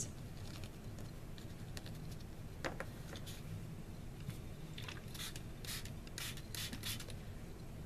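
Watercolor crayon being rubbed and smudged on a paper tag: faint rubbing, with a run of short scratchy strokes about five to seven seconds in and one light tap near three seconds.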